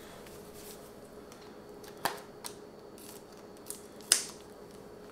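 Scissors snipping through the plastic wrapping of a sausage package: a few short, sharp cuts, the loudest about four seconds in.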